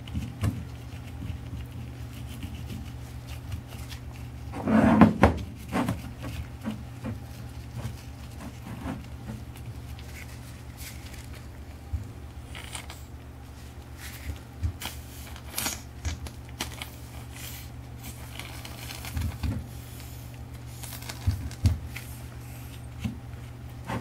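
Handling noise as gloved hands work wet furnace mortar over a wire-wound iron barrel and move it about on a wooden tabletop: scattered knocks and rubbing, loudest in a short cluster about five seconds in, over a steady low hum.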